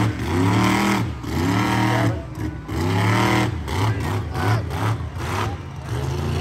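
Monster truck engine revved up and down over and over as the truck drives across the dirt, its pitch rising and falling about once a second.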